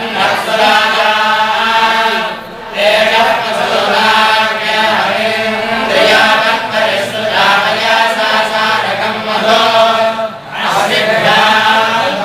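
A group of men chanting a recitation in unison, the voices running on in long phrases with two short breaks, about two seconds in and again near the end.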